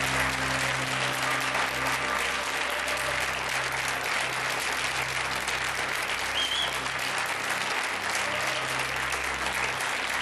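Studio audience applauding steadily, greeting a contestant's correct answer.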